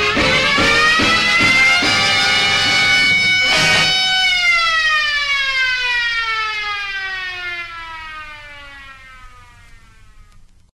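Band music with a cymbal crash about three and a half seconds in. Over it, a single long siren-like tone rises, holds, then slides slowly downward and fades away over about six seconds.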